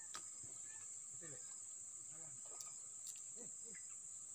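Steady high-pitched chirring of insects, with a few faint clicks.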